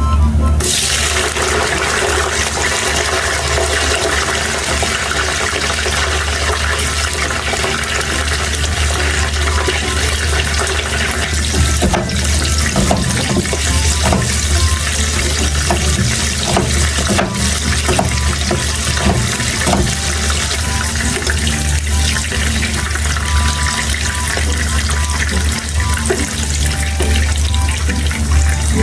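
Kitchen tap running water into a sink in a steady rush that starts about half a second in, with background music.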